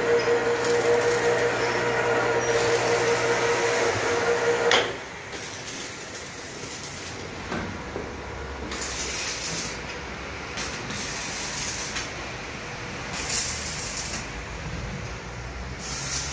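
Electric wire-rope hoist (winch) running with a steady motor hum and whine as it moves a motorcycle lift platform on a test run. It cuts off sharply with a knock about five seconds in, after which only faint handling knocks and rustle remain.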